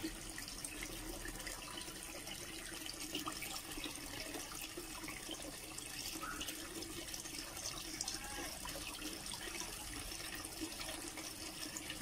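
Aquarium water trickling steadily, as from the filter's return into the goldfish tank, with a faint low hum beneath.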